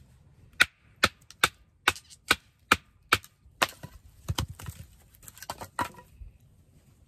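Wooden baton striking the spine of a Lionsteel M2M fixed-blade knife, driving its 3.5-inch M390 steel blade down through a small stick to split it. Sharp knocks, about two to three a second, coming more unevenly in the second half.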